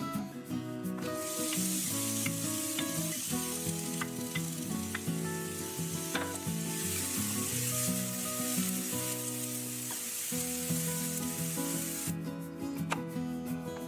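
Food sizzling as it fries in a hot pan, with a few light clicks of a utensil. The sizzle starts about a second in and stops near the end. Background music plays throughout.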